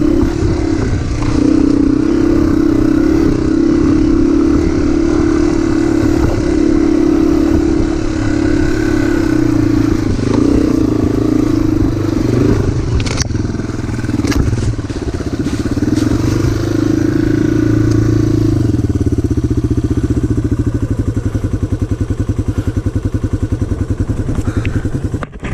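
Motorcycle engine running under way, its pitch rising and falling with the throttle, with a few sharp clicks about halfway through. About three-quarters of the way in it drops to a slower, pulsing low-revving beat.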